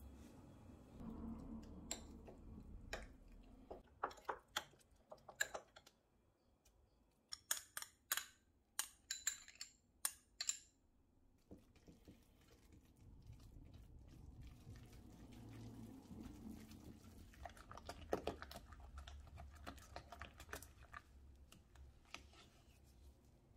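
Irregular sharp clicks and taps of kitchen work over a low hum, thickest from about two to eleven seconds in, with a few more near the end.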